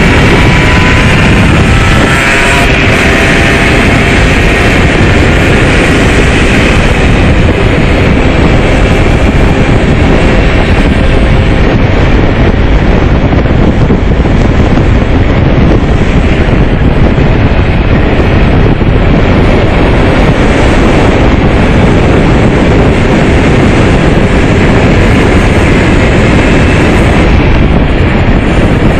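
Riding on a 50cc motorcycle, with wind buffeting the microphone. In the first couple of seconds the engine's whine climbs as the bike accelerates, then a loud, steady wind roar mostly drowns it.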